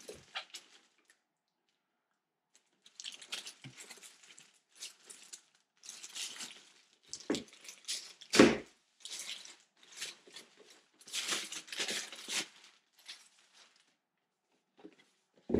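Packaging being handled and opened: irregular rustling and tearing of plastic and cardboard, with two sharp knocks about seven and eight seconds in, the second the loudest.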